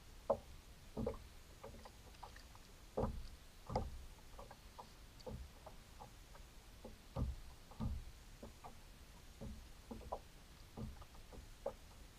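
Water slapping and knocking against a kayak hull in irregular soft thumps, a few louder ones about three to four seconds in and again about seven to eight seconds in, over a faint steady hiss.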